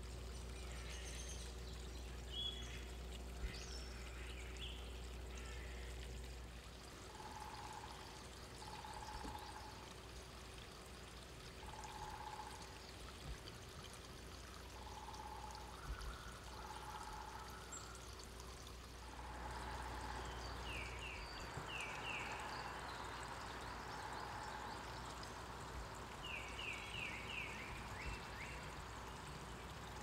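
Backyard songbirds calling over a steady rushing hiss: short high chirps in the first few seconds, then a lower note repeated every second or two, and quick runs of three or four falling notes near the end.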